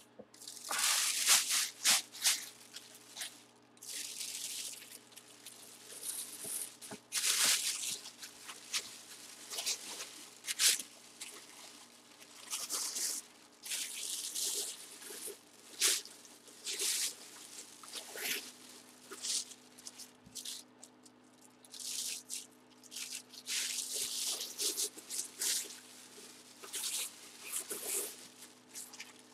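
Clear plastic bag crinkling and rustling in irregular bursts as a full-size football helmet is handled and slid into it.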